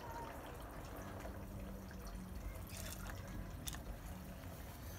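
Dark rum poured from a bottle into a jigger, a faint steady pour, then tipped over ice in a glass, with two light clinks about three and four seconds in.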